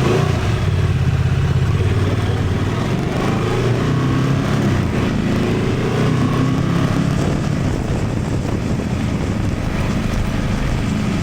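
Honda Transalp 750's parallel-twin engine running under way, its pitch rising and falling a little through the middle, over a steady rush of wind and road noise.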